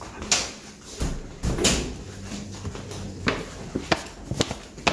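Knocks and clicks of a wooden door with a frosted-glass panel being handled and opened, mixed with footsteps: about seven sharp, irregular knocks.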